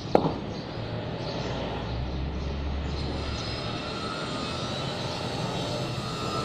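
A sharp knock just after the start with a short falling ring, then a steady low rumble of distant engine noise that swells for a couple of seconds in the middle.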